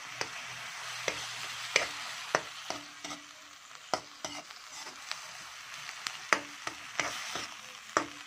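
Metal spatula scraping and clacking against a wok as a sauté of shrimp paste, pork, onion and chili is stirred, the mixture sizzling steadily in the oil. The clacks come at irregular intervals, roughly one to two a second.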